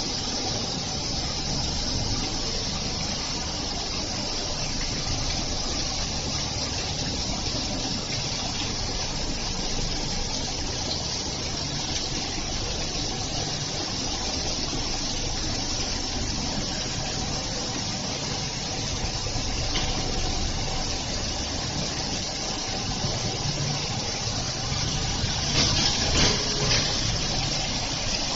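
CNC single-side grinding machine running, a steady rushing noise with a faint hum. A few sharper clicks come near the end.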